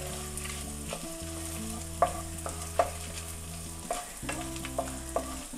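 Shallots, garlic and dried red chillies frying in oil in a nonstick pan, stirred with a flat spatula: a light sizzle with a few sharp knocks of the spatula against the pan.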